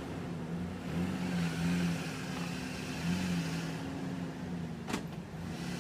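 Vehicle engine running and revving up and down as it strains to pull a tree stump out with a rope. There is one sharp knock about five seconds in.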